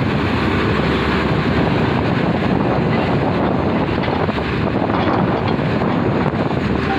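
Diesel engine of a Tata Hitachi 470 excavator running steadily as it loads soil into an Eicher tipper truck, heavily buffeted by wind on the microphone.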